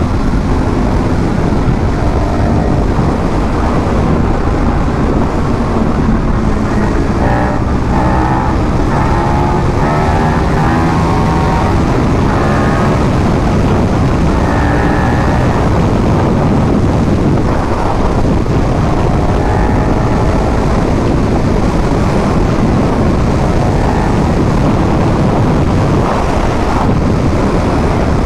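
Motorcycle riding at speed, heard from on the bike: a steady, loud rush of wind over the microphone with the engine running underneath, its note rising and falling through the middle stretch.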